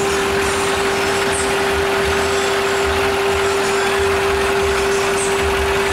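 Scania truck running at idle: a steady hum with one constant tone and irregular low rumbling.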